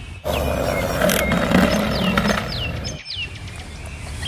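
A bird chirping in short downward-sliding notes, several in a row, over a steady background rush that drops away about three seconds in.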